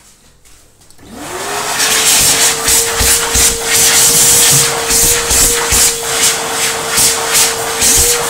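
Fast electric hand dryer starting up about a second in: its motor whine climbs quickly to a steady pitch under a loud rush of air. The air noise wavers as hands move in the blast.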